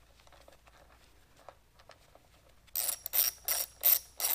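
Socket ratchet wrench tightening a bolt into a bracket: a run of sharp ratcheting clicks, about three strokes a second, starting about two-thirds of the way in, after faint handling clicks.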